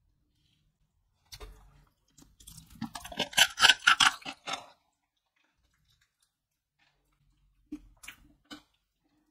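Hard tamarind candy shell of a Pelon Peloneta lollipop cracking and crunching as it is broken apart by hand: a few clicks, then a dense run of crackles about two to five seconds in, and three light clicks near the end.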